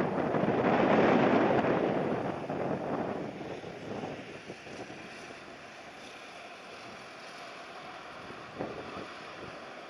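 Strong gusty wind buffeting the microphone: loud gusts for the first few seconds, then easing to a softer rush.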